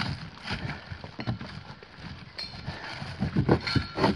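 Footsteps on a rocky dirt trail, a hiker walking closer, the irregular steps getting louder near the end.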